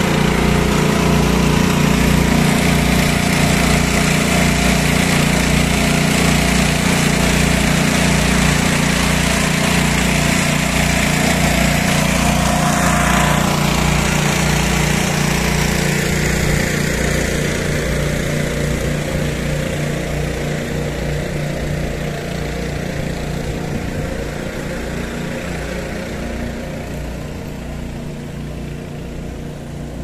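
Engine-driven pump running steadily as it pumps sewage out of a clogged manhole; the sound grows fainter over the second half.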